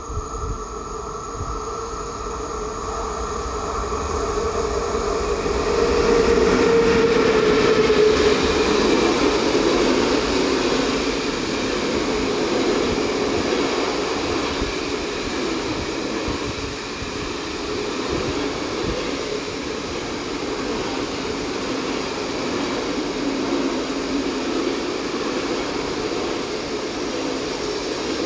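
Freight train of covered hopper wagons approaching and running past on the near track. The rolling rumble builds over the first six seconds, is loudest from about six to ten seconds in as the front of the train passes, then settles into the steady rolling of the wagons' wheels on the rails.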